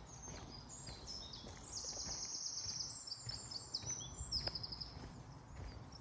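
A songbird singing a long, high song of quick trills and stepped notes for about five seconds. Under it, the soft, irregular crunch of footsteps on a sandy forest path.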